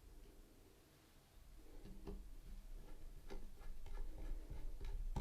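Faint, irregular light clicks and ticks of a precision screwdriver and tiny screws being worked into a small metal device. The clicks start about two seconds in and come more often toward the end.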